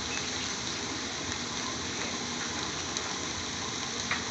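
Spinach and onions cooking in a pot on a low gas flame: a steady sizzling and bubbling with faint crackles.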